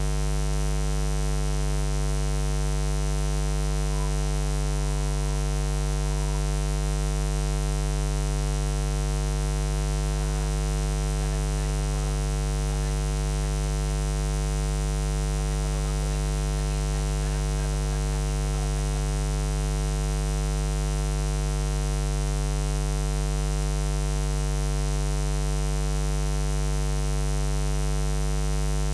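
Steady electrical mains hum: a low, unchanging buzz with a stack of even overtones, covering any programme sound. Faint traces of something higher come through now and then in the middle.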